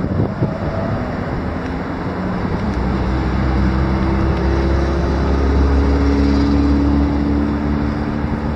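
Street traffic: a motor vehicle passing, its low engine hum swelling from about a third of the way in and easing off near the end, over steady outdoor noise.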